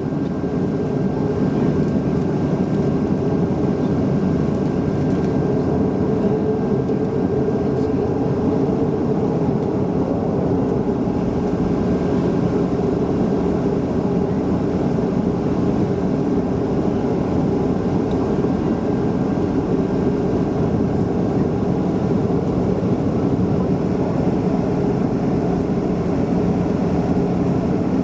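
Steady engine and airflow noise of a Boeing 737-400 with CFM56-3 turbofans, heard from inside the cabin as a dense rush with a few steady hums. It fades in over the first second and then holds level.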